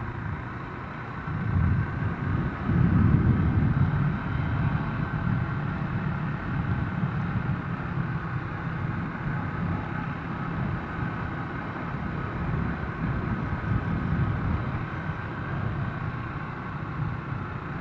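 Motorcycle engine running under way, with wind and road noise, swelling for a couple of seconds about two seconds in.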